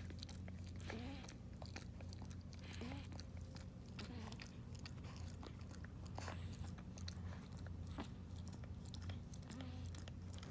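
Maltese-Shih Tzu puppies making small mouth noises: irregular soft wet clicks and smacks like chewing or mouthing, with a few short faint squeaks, over a steady low hum.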